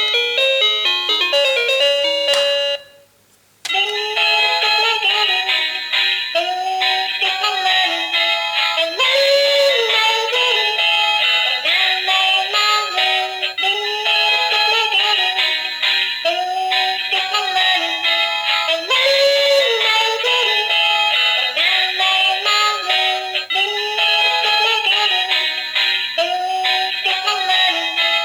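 Toy telephone playing a few quick electronic beeps. After a brief pause it starts a looping electronic tune with a synthetic singing voice, which repeats about every five seconds.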